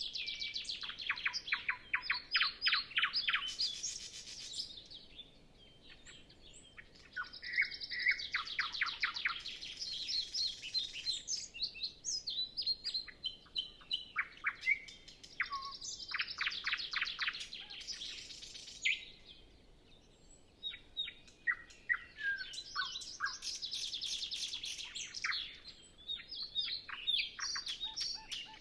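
Nightingale singing alone: about four song phrases of fast repeated notes, trills and whistles, each a few seconds long, with short pauses between them.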